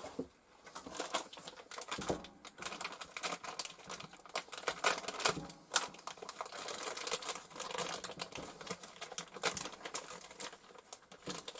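Packaging being cleared away by hand: wrapping rustling and crinkling, with many small irregular clicks and knocks.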